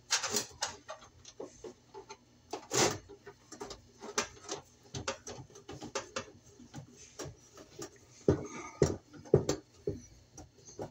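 Irregular clicks, taps and light rattles of hands working stiff wires and a screwdriver inside a sheet-metal baseboard heater housing.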